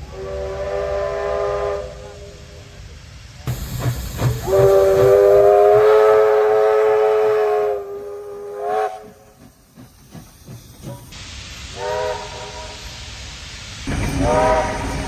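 Steam locomotive whistle sounding in several separate blasts: one of about two seconds, a longer one of about three seconds, a brief toot, then two more short blasts. Steam hiss and low running noise lie underneath.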